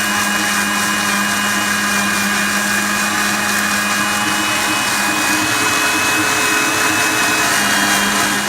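Electric mixer grinder (mixie) running steadily at speed, grinding a wet masala paste of chillies, onion, ginger, garlic and spices with vinegar.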